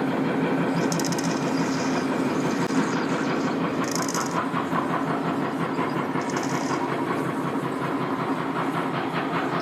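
Boat engine running steadily under power as the big boat is driven in to the ramp, mixed with strong wind buffeting the microphone.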